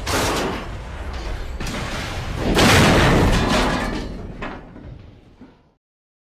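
Train crash sound effect: heavy slams and metallic crashing, with big impacts at the start, about a second and a half in and again near three seconds, then clattering that dies away and cuts off abruptly.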